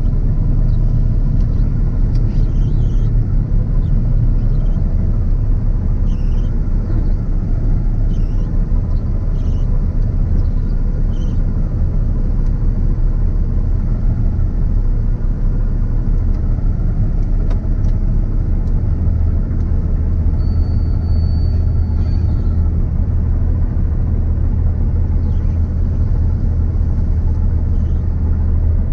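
CLAAS Lexion 770 combine harvester running steadily at work, a constant low machine rumble and hum heard from the cab. A short, thin high-pitched tone sounds for about two seconds some two-thirds of the way through.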